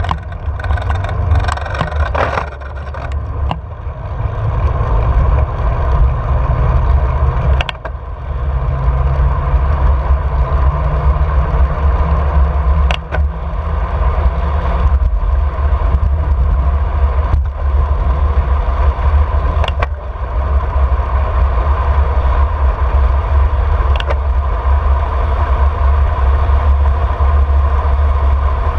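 Wind buffeting the microphone of a handlebar-mounted action camera while riding, heard as a steady heavy rumble with a hum of tyre and road noise. A few sharp clicks stand out now and then.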